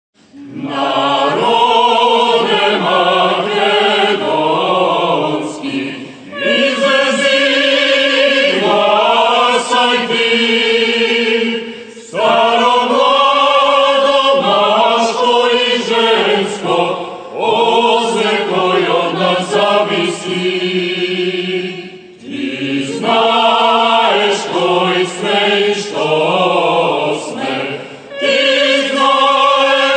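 Mixed choir of men's and women's voices singing in several parts. The singing comes in phrases of about five seconds, with brief breaks between them.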